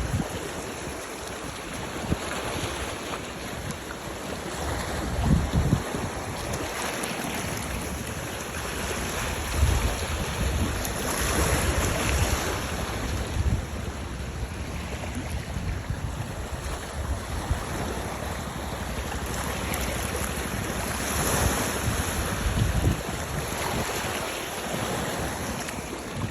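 Wind buffeting the microphone over a steady wash of sea waves, with brief gusts and a couple of swelling surges of surf.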